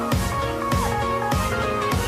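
Background music: electronic music with a steady beat and a repeating melody.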